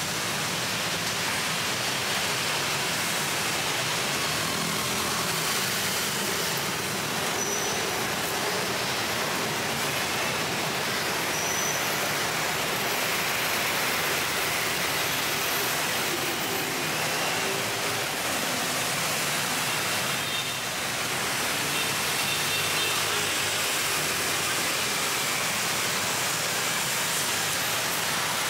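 Steady traffic noise of a busy city road, an even rush of passing vehicles with no single standout event.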